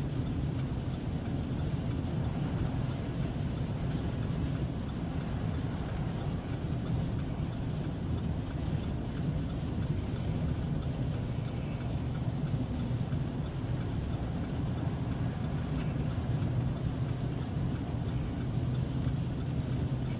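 Steady engine drone and road noise heard from inside a vehicle's cab while driving, a constant low hum with no sudden changes.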